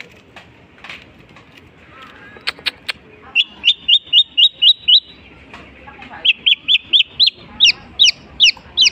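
Long-tailed shrike (cendet) singing mimicry: after a few soft notes, two loud runs of sharp, repeated chirps come at about four a second, the second run longer than the first.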